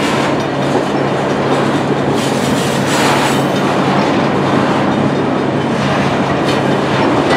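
Freight train tank cars rolling past close by: a loud, steady rumble and clatter of steel wheels on the rail as the tail end of the train goes by.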